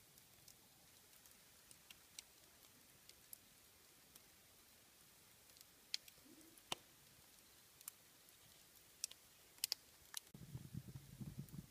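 Faint, sparse crackles and pops from a wood and charcoal fire's glowing embers, irregular and a few seconds apart. A low muffled rumble comes in near the end.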